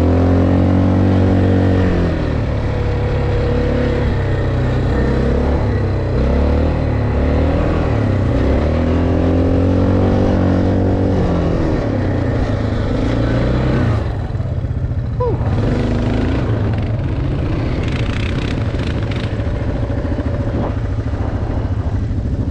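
ATV (quad bike) engine running under load and revving, its pitch rising and falling repeatedly for the first dozen seconds or so, then running rougher with more noise.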